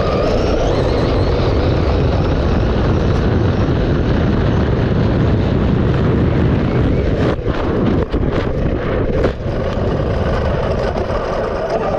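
Losi DBXL-E 2.0 electric RC buggy running at speed over grass: a loud, steady rush of wind and tyre noise, with a faint rising brushless-motor whine near the start and a few short knocks from bumps in the second half.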